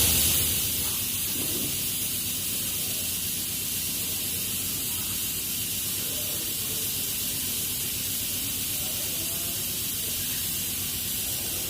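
Compressed air escaping from a workshop air hose in a continuous high hiss, a little louder for the first second and then holding steady.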